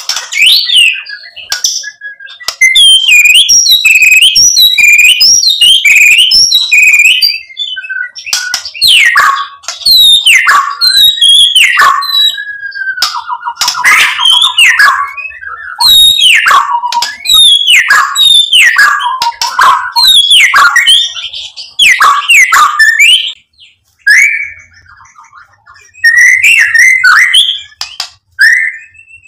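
White-rumped shama singing a long, loud, varied song. A fast run of short high chattering notes gives way to a series of rich downslurred whistles, broken by a quick trill, with a brief pause a few seconds before the end.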